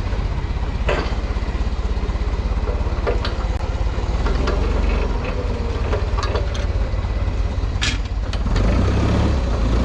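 Forklift engine running steadily at low speed while it drags a heavy machine on skates, with a few sharp clanks and knocks scattered through. The engine gets louder near the end.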